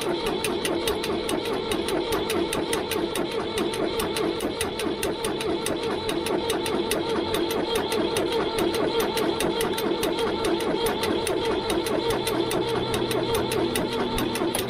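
Starter motor cranking the cold diesel engine of a Ford 3000 tractor, a fast even beat of compression strokes without the engine catching. The cranking stops right at the end.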